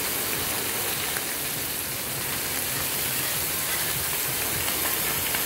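Wahoo pieces and onions sizzling steadily in butter and oil on a large gas-heated round steel griddle pan.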